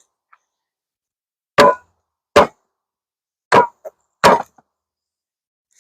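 Wooden bee package box knocked down hard four times, in two pairs, to bounce the honey bees down inside it.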